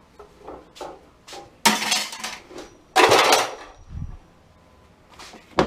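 Loose scrap steel parts clattering as they are handled, with light clinks and two louder crashes of metal on metal, about one and a half and three seconds in.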